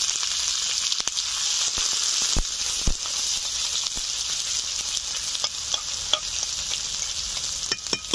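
Chopped onions sizzling steadily in hot mustard oil in a metal kadai. A metal spatula stirs them, scraping and knocking against the pan now and then.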